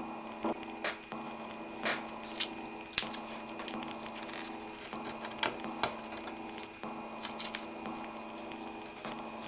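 Scattered sharp clicks, taps and short rustles of small objects being handled, over a steady low hum.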